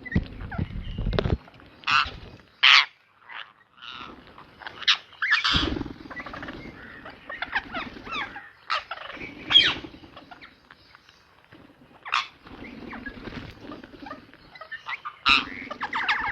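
Ringneck parrot squawking and chattering: short sharp screeches, the loudest about two to three seconds in, near ten seconds and near the end, with softer chatter between them. A few low rumbles come near the start and around five seconds.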